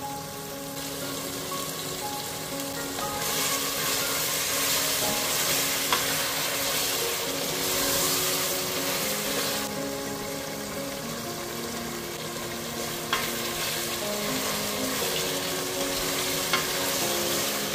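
Lamb pieces with onion and garlic sizzling as they fry in oil in a stainless steel pot, stirred with a wooden spoon. The sizzle grows louder about three seconds in, with a few sharp clicks.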